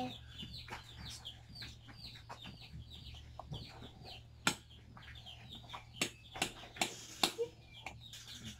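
Birds chirping over and over in short, high, falling calls, with several sharp clinks of metal utensils against ceramic bowls in the second half, the loudest sounds here, over a steady low hum.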